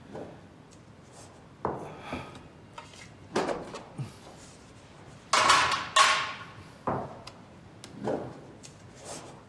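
Dishes and food containers being handled and set down on a table: scattered knocks and clatters, the loudest a longer clatter about five and a half seconds in.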